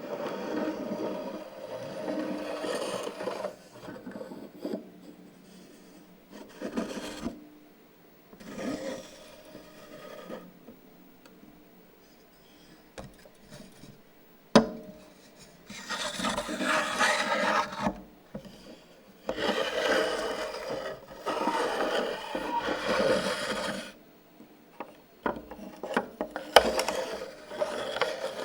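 Irregular rubbing and scraping on a hard surface, in strokes of one to three seconds with pauses between them, and a single sharp knock about halfway through.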